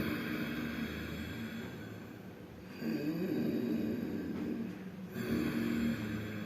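Ujjayi breathing: slow, audible breaths drawn in and pushed out through a narrowed throat, with a rasping friction sound. A new breath starts about two and a half seconds in and again about five seconds in.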